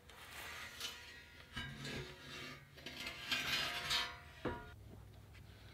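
Scrap-steel bracket being handled and scraped against the camper's underside frame, with irregular rubbing and light metal clatter, and one sharp knock about four and a half seconds in.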